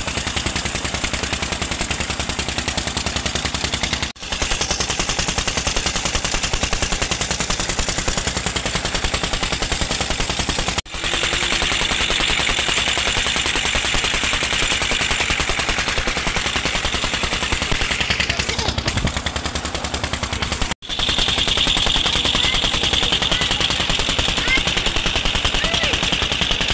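A tubewell pump engine running with a rapid, even chugging, over the rush of water gushing from its outlet pipe. The sound drops out briefly about 4, 11 and 21 seconds in.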